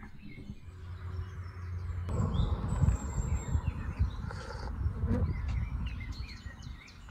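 Small birds chirping. From about two seconds in, a rushing noise with a low rumble rises under the chirps and holds until near the end.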